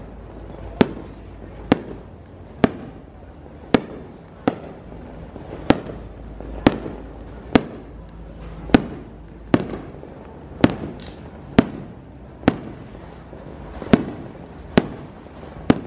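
Aerial firework shells going off in a steady sequence, a sharp bang about once a second, each with a brief echo.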